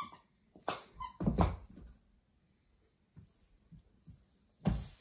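Knocks and thumps on a cardboard box as a baby crawls into it: several in the first second and a half, then quiet with faint taps, and a sharper knock near the end.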